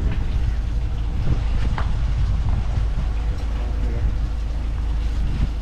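Harbour background noise: a steady low rumble with faint, indistinct voices.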